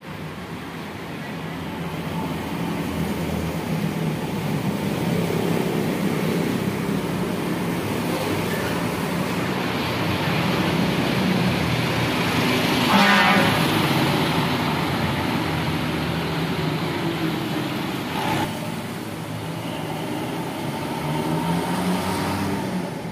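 Diesel engine of an intercity coach pulling out and driving past close by, growing louder as it nears. About halfway through, a short horn blast sounds as it passes.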